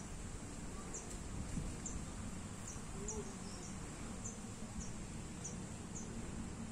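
A steady, high-pitched insect drone, with a run of short high chirps about twice a second through most of it, over a low rumbling background.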